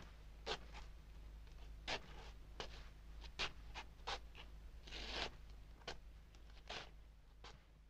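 Short, irregular scratching sounds, about a dozen, with one longer scrape about five seconds in, over a faint steady low hum.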